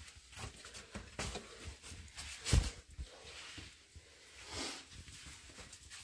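Faint scattered scuffs, clicks and knocks of someone climbing down a narrow rock shaft, with one louder knock about two and a half seconds in.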